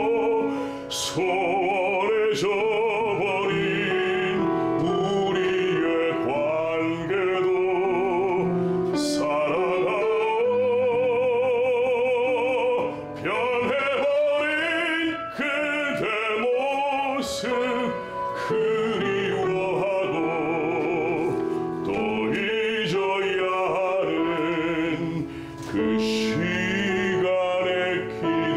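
A male classical voice singing opera in long legato phrases with a wide vibrato, over piano accompaniment.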